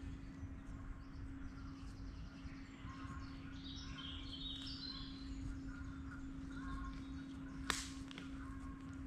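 Woodland birds singing, several songs overlapping, faint over a steady low hum. About three-quarters of the way through comes one sharp crack.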